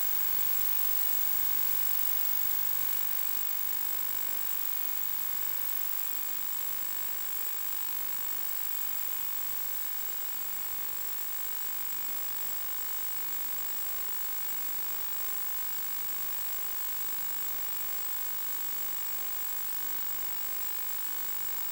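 Steady static hiss with a constant thin high-pitched whine, unchanging throughout: noise on the audio channel of an analog FPV video downlink.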